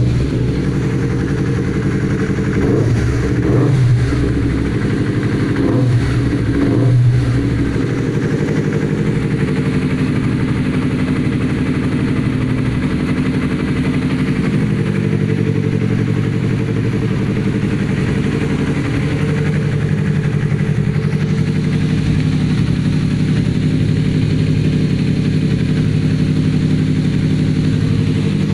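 Yamaha R25 parallel-twin engine breathing through an aftermarket Akrapovic exhaust, which has a mellow, bassy note. It is revved briefly twice in the first several seconds, then settles into a steady idle.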